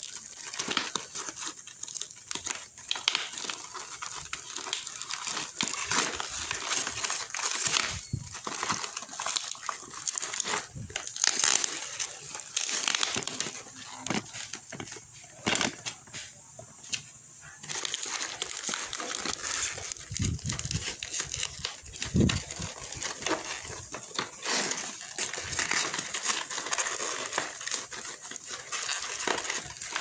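Cardboard packaging and packing tape being torn and pulled apart by hand, with irregular crackling and crinkling throughout and a few dull thumps about two-thirds of the way in.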